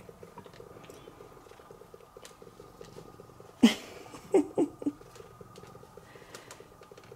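Domestic cat purring steadily up close. About halfway through comes a sudden loud sound falling in pitch, then three short pitched sounds in quick succession.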